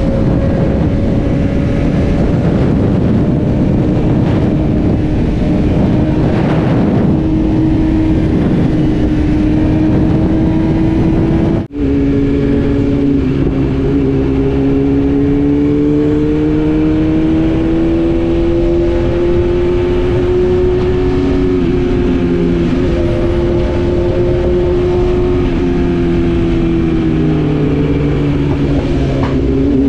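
BMW S1000RR inline-four engine running at highway speed under heavy wind rush on the microphone. After a sudden cut about twelve seconds in, the bike rides slower, its engine note clearer with less wind, rising and falling gently with the throttle.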